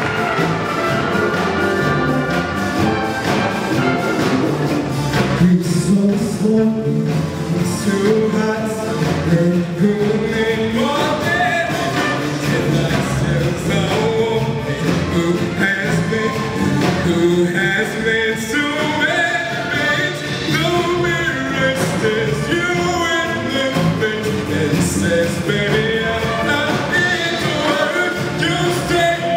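Live orchestra with big band and choir playing a disco-funk medley, with a solo singer on microphone singing over it.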